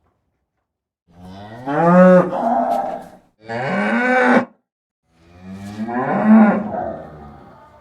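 A cow mooing three times: two long calls with a shorter one between them, each arching up and down in pitch.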